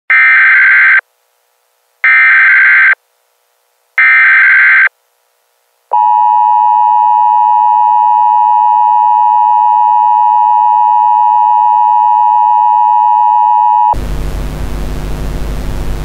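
Emergency Alert System broadcast audio: three one-second bursts of SAME header data, a second apart, then the steady EAS two-tone attention signal for about eight seconds. The signal cuts off suddenly and gives way to a hiss with a low hum near the end.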